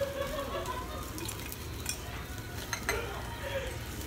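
Meat sizzling on a tabletop yakiniku grill, a steady hiss with a few light clicks.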